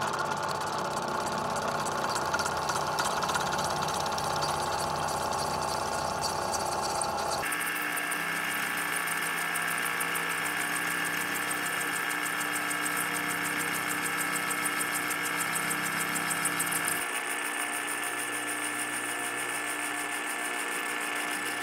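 Lagun vertical milling machine running a five-insert shell mill through a light 20-thousandths facing cut on aluminum. It gives a steady machine hum with a high cutting hiss. The sound changes abruptly about seven and seventeen seconds in.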